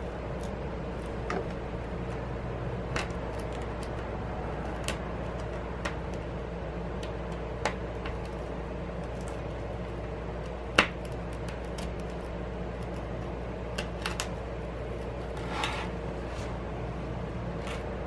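Scattered small clicks and taps of a thin pry tool worked under the edge of an iPad Pro's glass screen to separate it from the frame, over a steady low hum. The loudest tap comes about eleven seconds in.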